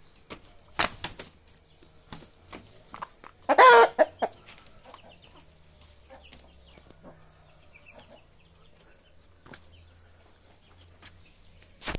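Indian game rooster giving one short, harsh call with a wavering pitch a few seconds in, the loudest sound, while squaring up to defend its territory. Scattered sharp knocks and scuffs around it, with a louder one about a second in and a brief burst of noise at the end.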